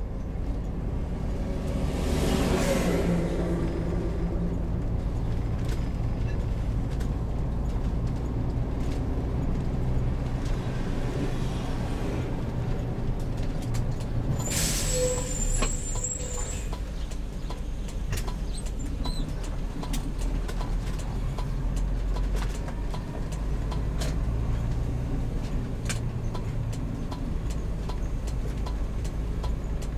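A heavy motorhome's engine running steadily on the road. There is a hiss of released air about two seconds in and a louder, longer hiss around the middle, the kind an air-brake system makes. Faint regular ticking comes in the second half.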